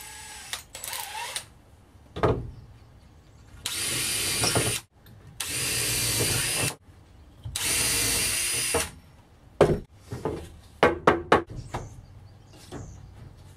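Cordless drill run three times, about a second each, driving up through the bottom rail board into the railing. A few sharp clicks and knocks follow near the end.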